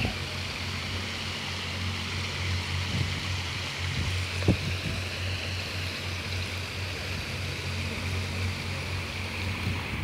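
Water cascading over the rim of a round fountain basin in a thin curtain and splashing into the pond below: a steady rush, with a steady low hum underneath.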